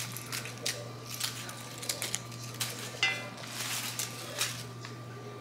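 Roses being sorted and trimmed by hand: a scattered run of short sharp clicks and snips, with one brief ringing tick about three seconds in. A steady low hum runs underneath.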